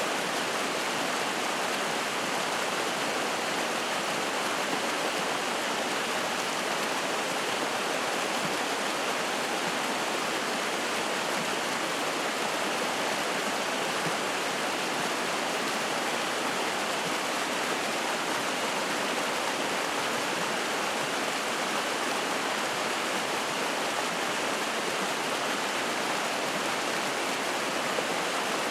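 Spring-fed mountain stream rushing and splashing over rocks, a steady, unbroken rush of water.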